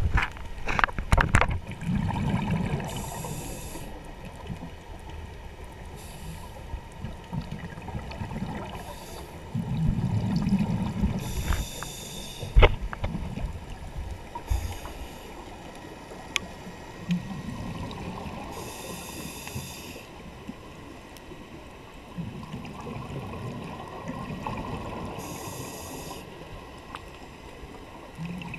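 Scuba regulator breathing underwater: a hiss on each inhale, then the low bubbling rumble of exhaled air, repeating every seven or eight seconds. A few sharp clicks, the loudest about twelve seconds in.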